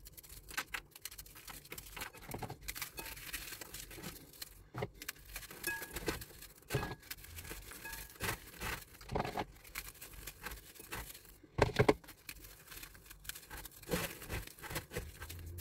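Digestive biscuits being snapped and crumbled by hand into a bowl: a stream of irregular small cracks and crunches, with a few louder snaps.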